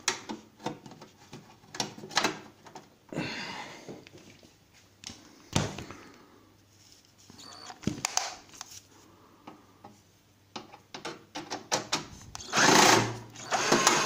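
Small clicks and scrapes of a screw and tool being handled against the sheet-metal casing of a microwave, then near the end a cordless screwdriver runs in two short bursts, driving a self-tapping screw into the metal to fasten the turntable motor fitting.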